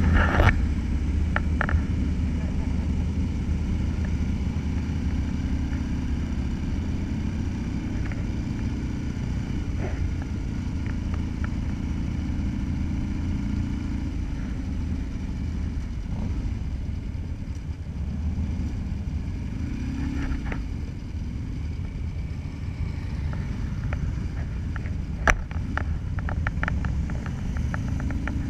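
Motorcycle engine running steadily at low cruising speed, heard from the rider's own bike, with wind rumble on the microphone. A few sharp clicks come near the end.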